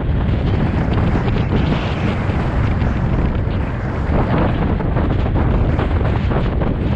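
Loud wind buffeting on a GoPro action camera's microphone during a road bike ride, a steady rumbling rush with no clear tone.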